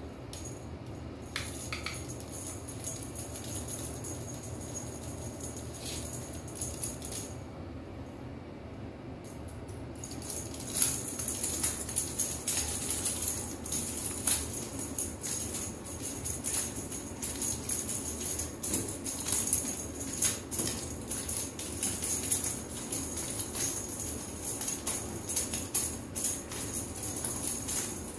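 Rapid, uneven jingling and rattling, like a small bell or shaker, starting about ten seconds in and going on in quick bursts over a steady hiss.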